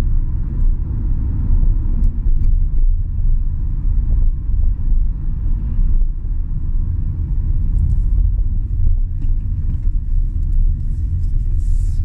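Car cabin noise while driving: a steady low rumble of engine and tyres on the road, heard from inside the car, with a few faint ticks.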